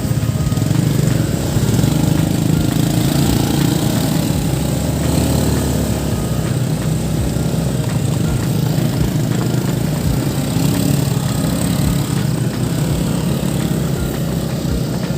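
Small petrol engine running steadily under load while travelling, rising over the first second and then holding at an even pitch.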